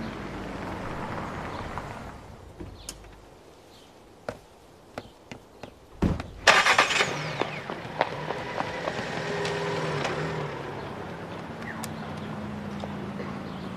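A Volkswagen taxi's engine running as it pulls up and stops. A few light clicks follow, then a loud car-door slam about six seconds in, after which a steady engine hum runs on.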